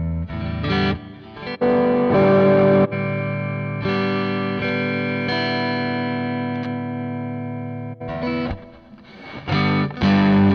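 Electric guitar played through a Zoom G1 Four multi-effects processor on a Marshall amp model, giving a crunchy overdriven tone. A few struck chords, then one long chord left ringing and slowly fading for several seconds, then more chords near the end.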